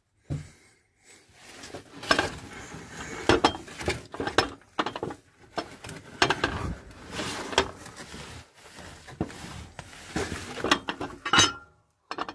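Irregular metallic clinks, knocks and clatter of tools and metal car parts being handled, with short pauses between bursts.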